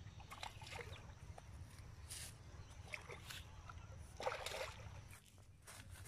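Hooked catfish thrashing at the pond surface, with irregular short splashes of water over a low steady rumble.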